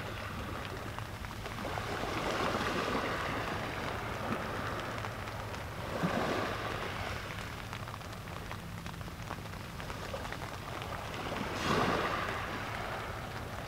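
Steady wash of fine rain and sea on the beach, swelling a few times: about two seconds in, about six seconds in, and near the end.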